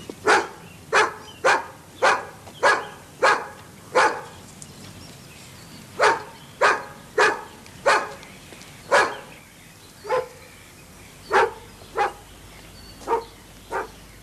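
A dog barking over and over, in three runs of loud, short barks at about two a second with brief pauses between runs.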